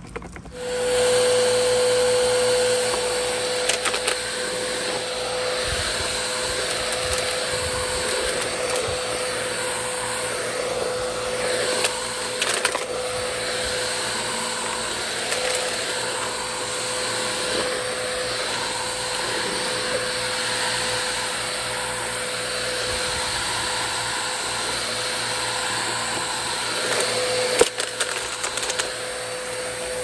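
Upright vacuum cleaner switching on about half a second in and running steadily with one held tone, with a few sharp clicks and rattles as dry grass clippings are sucked up.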